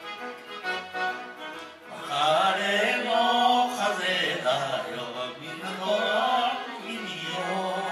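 Older men and women singing a Japanese popular song together over instrumental backing music. The voices come in about two seconds in, after a short instrumental passage.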